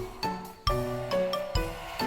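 Background music: a light melody over a bass line, with notes struck about twice a second.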